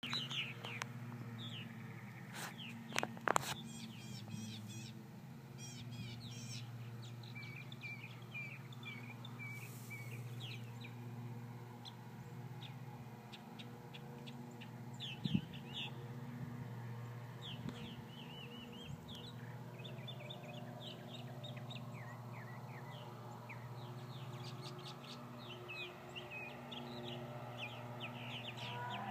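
Purple martins calling overhead: many short chirps and croaky chattering notes, overlapping throughout. A steady low hum lies underneath, and a few sharp clicks come about three seconds in and again around halfway.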